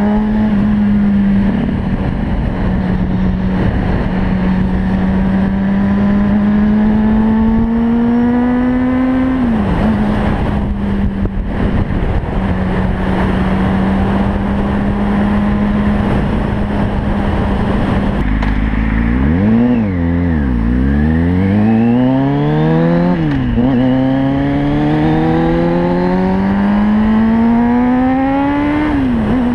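Kawasaki ZX-6R 636's inline-four engine under way, with wind rushing over the microphone. The revs climb slowly and fall back sharply at an upshift about a third of the way in, then hold steady. About two-thirds in they drop and dip, then rise again through the gears, with a shift a few seconds later and another near the end.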